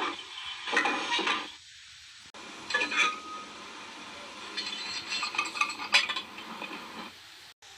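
Metal clanking and clinking in several separate clatters, over a steady hiss.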